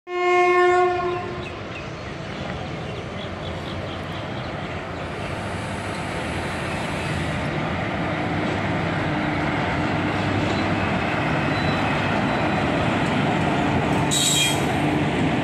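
A train horn sounds one short blast at the start, then a passing train with an electric locomotive runs by, its rumble growing steadily louder. A brief high-pitched squeal comes near the end.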